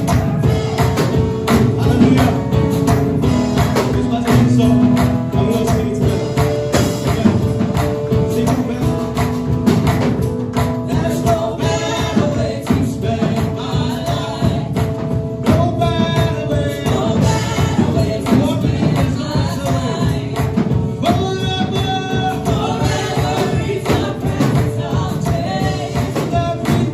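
Gospel praise music: a tambourine shaking along with a busy, steady beat under sustained instrument tones, with voices singing over it from about halfway through.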